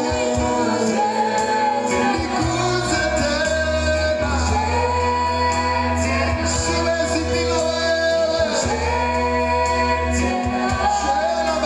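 Praise-and-worship music: voices singing over instrumental backing with long held bass notes.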